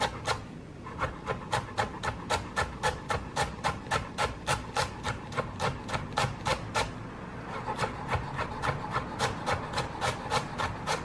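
Chef's knife chopping carrot slices on a bamboo cutting board, a steady run of sharp knocks about three to four a second. The knocks go softer for a moment about a second in and again around seven seconds in.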